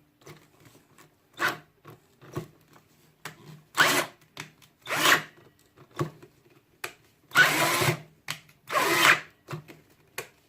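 Harbor Freight Drill Master 18-volt cordless drill running in repeated short bursts with its pitch rising and falling, as it tries to drive a 3/4-inch auger bit into pine. The drill struggles under the load and makes little progress into the wood.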